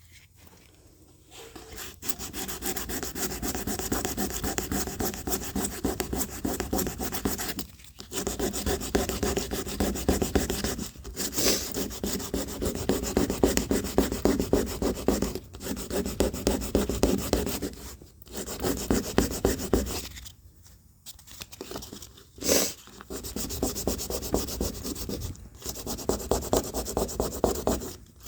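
Sanding on the door panel of an 84 Chevy C10 pickup, being prepared for paint. It is a rough, scraping rub that starts about two seconds in and goes on in stretches of a few seconds, with several short pauses.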